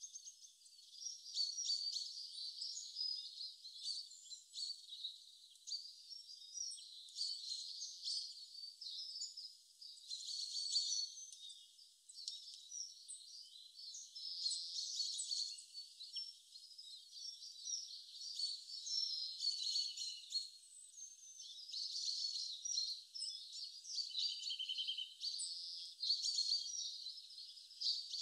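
Many small birds chirping and twittering without a break, with a short trill about three-quarters of the way through. The sound is thin, with no low sound at all beneath the high notes.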